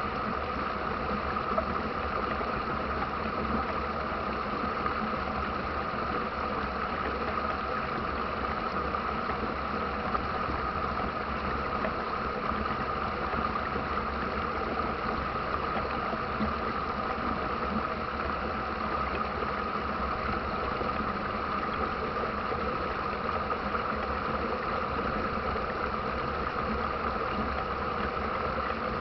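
Steady rush of river rapids, an unbroken noise of running water that holds level throughout.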